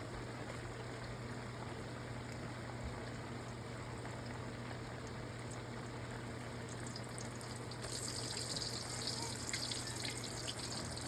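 Steady hissing noise over a low steady hum, becoming brighter and a little louder about eight seconds in, with a few small clicks.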